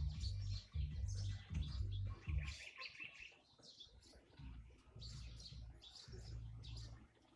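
Rapid high chirps of small songbirds, with nestlings gaping and begging, and a brief trill about three seconds in. A low pulsing hum runs underneath.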